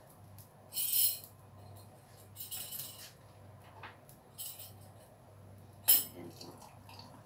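Cups and cutlery clinking as tea things are handled: several short clatters, with one sharp, loudest clink about six seconds in, over a faint steady low hum.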